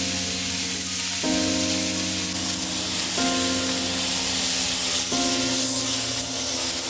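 Meat sizzling steadily on a hot iron griddle plate, under background music that moves to a new held chord about every two seconds.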